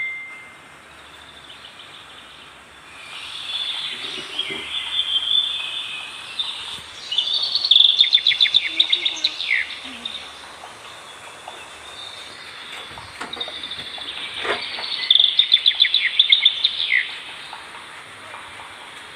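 Forest birdsong: a songbird sings two rapid trilled phrases about seven seconds apart, each ending in a falling note, among softer chirps. A faint steady high hiss runs underneath.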